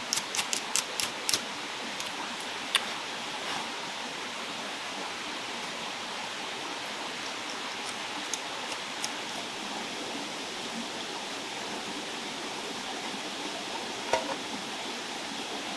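Steady rush of a forest stream. A quick run of about six sharp knocks or clicks comes in the first second and a half, with single ones about three seconds in and near the end.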